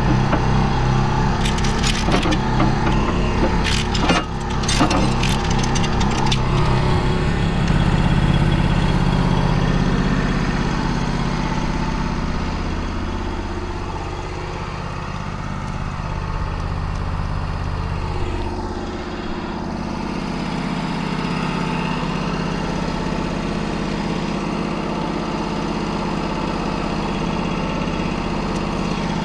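An engine running steadily, its pitch dipping and then coming back up around the middle. In the first few seconds, a run of sharp metal clanks and rattles from chain and steel being handled.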